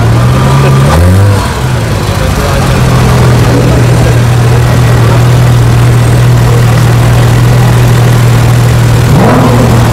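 Porsche 911 GT3 RS's naturally aspirated flat-six: the revs climb in the first second, then it idles steadily, and about nine seconds in the revs rise again as it moves off.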